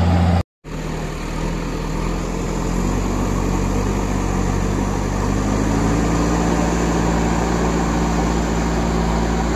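JCB backhoe loader's diesel engine running steadily, starting after a brief break about half a second in.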